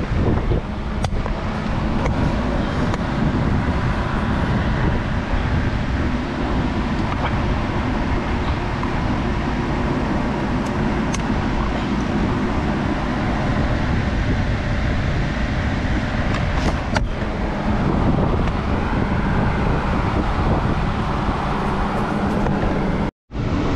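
Steady rushing drone of a large shop drum fan, with a few light clicks of steering-wheel trim and switch parts being handled.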